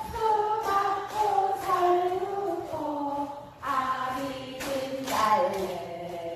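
Group singing: a woman's voice on a microphone leads a slow song in held notes, with the audience singing along.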